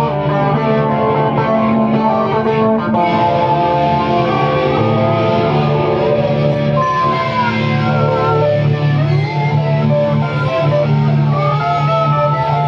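Electric guitars playing a slow instrumental passage: held low notes ring on under high notes that slide up and down in pitch.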